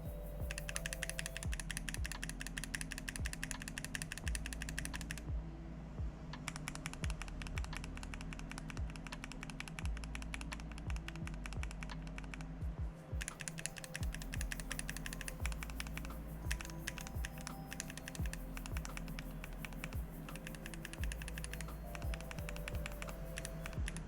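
Fast typing on a Tofu65 mechanical keyboard with a brass plate and Banana Split linear switches: a dense run of keystroke clicks that stops briefly twice. Background music plays underneath.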